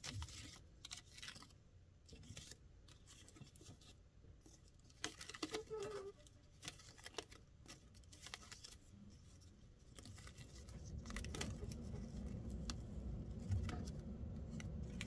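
Paper cards being flipped and rustled on a Rolodex rotary card file: irregular soft clicks and paper rubbing, with a busier patch of ticks about a third of the way in. A low rumble comes in about two-thirds of the way through.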